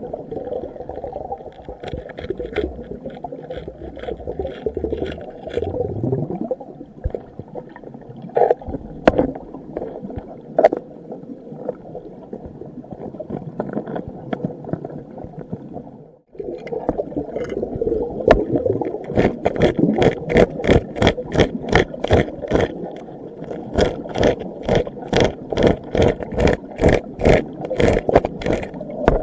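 Muffled underwater water noise heard through a submerged camera. After a brief dropout about halfway through comes a fast run of sharp clicks, several a second: a metal sniping tool scraping and tapping in a granite crevice.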